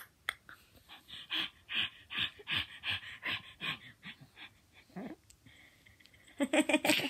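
Baby laughing in short, breathy, panting bursts, about three a second, ending in a louder voiced squeal near the end.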